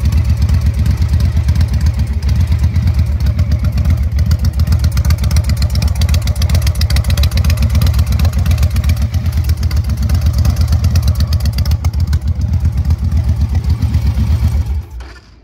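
2005 Victory Kingpin's V-twin engine idling steadily with a fast, even pulsing, then switched off near the end, its sound cutting off abruptly.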